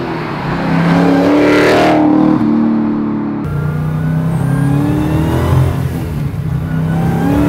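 Supercharged Hellcat V8 in a 1969 Plymouth Road Runner revving up under hard acceleration, its pitch climbing. It climbs again after a sudden break about three and a half seconds in.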